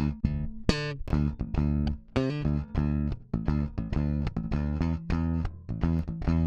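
Electric bass guitar line played back through a Midas 522 500-series compressor: a rhythmic run of short plucked notes with sharp attacks and brief gaps between them.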